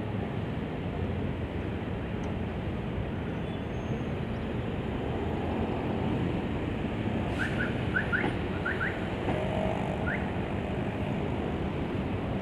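Steady rumble of road traffic mixed with a slow-moving rail work train approaching. About seven to ten seconds in, a few short rising bird chirps sound over it.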